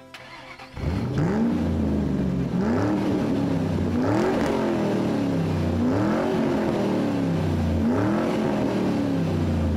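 Car engine revved again and again, starting about a second in: each rev climbs quickly in pitch and dies away slowly, about every two seconds.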